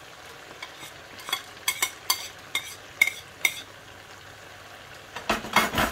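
Potatoes and carrots frying in a pan with a steady soft sizzle, as minced garlic is added. A wooden spatula taps and scrapes against the pan about a dozen times in the first few seconds, with a louder burst of scraping near the end.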